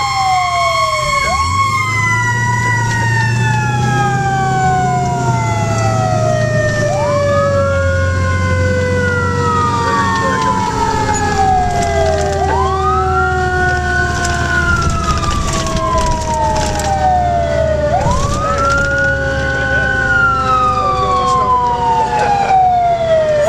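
Fire engine sirens heard from inside the cab. One siren winds slowly down in pitch throughout, while a second one wails over it, rising quickly and sliding back down about every five and a half seconds. Under both runs the low rumble of the truck's engine.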